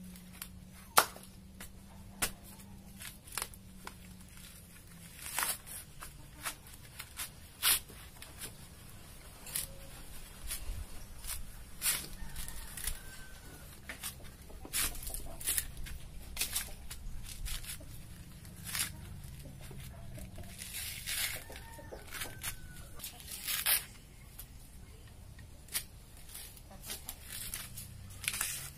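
Fibrous husk of a young kopyor coconut being torn off by hand, in irregular sharp ripping strokes.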